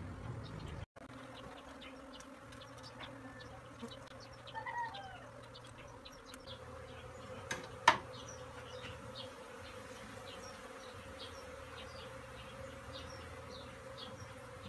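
A colony of Asian honeybees (Apis cerana) buzzing steadily around comb being lifted out by hand, with scattered small ticks. A brief chirp sounds about four and a half seconds in, and a single sharp click just before eight seconds is the loudest moment.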